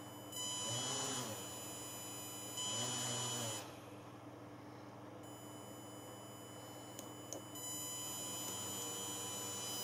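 Micro quadcopter's four small motors with propellers fitted, spinning up briefly twice at very low throttle, each time with a whine that rises and falls away, then running steadily at a low idle from about eight seconds in, as the idle speed is set to the lowest value at which they keep turning.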